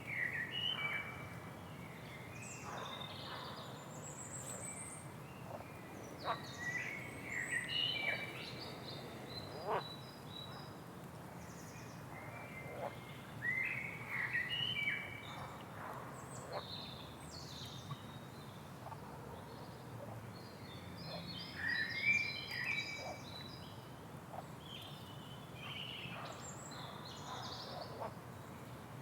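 Rainforest ambience: several birds calling with short chirps, whistles and trills every second or so over a steady low background noise, loudest in brief flurries.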